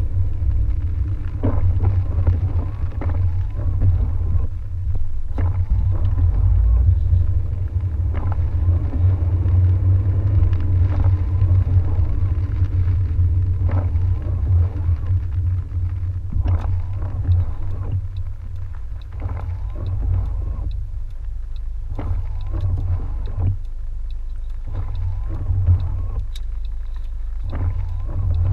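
Low in-cabin rumble of a car driving on wet roads in the rain, with scattered light taps and clicks. The rumble eases in the second half as the car slows to a stop at an intersection.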